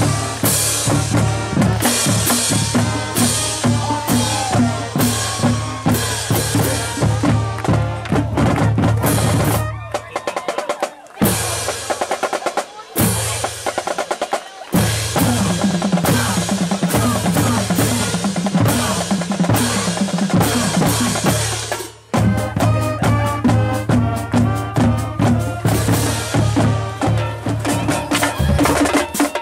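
School marching band drumline, snare drums and bass drums, playing a loud, steady cadence. The beat mostly stops for a few seconds about a third of the way in, with only scattered strokes, then comes back, and breaks off briefly once more before carrying on.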